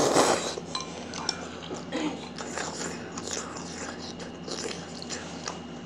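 A child chewing a mouthful of jjapaghetti noodles and kimchi, with many small irregular crunches and clicks and a louder burst right at the start.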